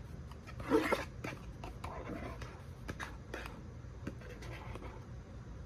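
A utensil scraping and tapping in a microwave dinner tray as the stroganoff is emptied out, with irregular small clicks and a louder scrape about a second in.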